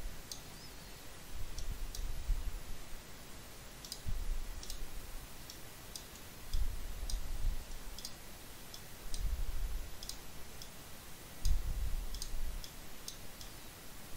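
Computer mouse clicking: about twenty single, sharp clicks at irregular intervals, with dull low rumbles swelling every two or three seconds.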